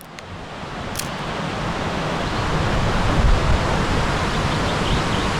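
Fast mountain river rushing, a steady wash of water noise that fades in over the first couple of seconds.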